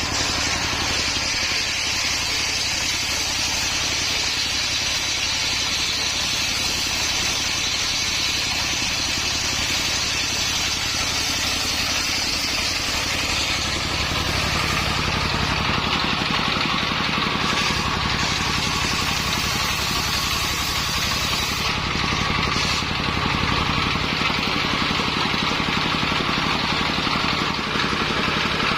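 Engine-driven mobile circular sawmill running steadily, its circular blade sawing coconut-palm wood.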